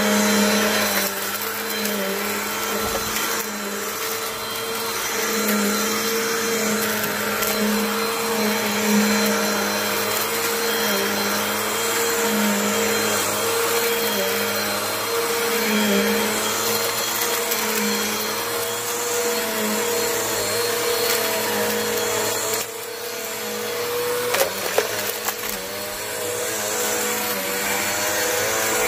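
Vacuum cleaner running steadily as it sucks up dirt and debris. It dips briefly about 23 seconds in, followed by a few sharp clicks.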